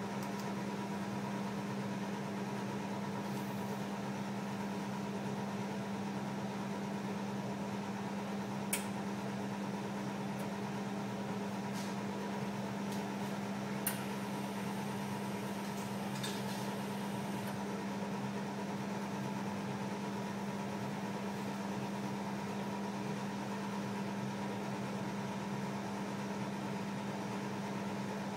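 Steady hum of running equipment, with a constant low tone and a fainter higher one over a soft hiss, and two short clicks about nine and fourteen seconds in.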